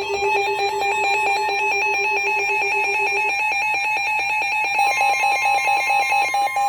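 Electronic emergency alert tones: a rapid two-pitch warble alarm flipping back and forth several times a second. It is layered with steady beeping tones, one of which stops about halfway through while another starts near the end.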